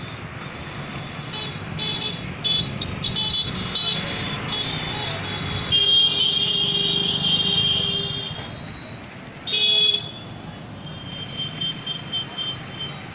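Road traffic rumbling steadily, with vehicle horns honking over it: a run of short toots in the first few seconds, one long honk of about two seconds near the middle, and another short honk about ten seconds in.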